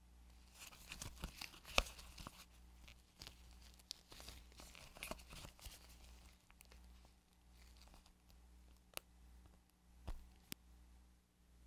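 A thin clear plastic tray crinkling and clicking under gloved fingers as a sticky gummy candy is peeled out of its mould, with a soft tearing as it comes away. The crackling is busiest in the first six seconds, followed by a few single sharp clicks near the end.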